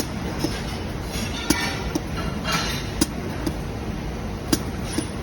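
Soft PVC dispensing machine cycling over a steady background hum: pairs of sharp clicks, the second about half a second after the first, repeating about every second and a half.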